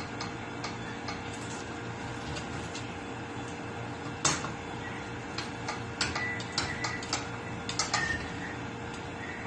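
Wooden spatula stirring food in a stainless steel pot and knocking against the pot: one sharp clack about four seconds in, then a run of lighter clacks over the next few seconds, over a steady hum.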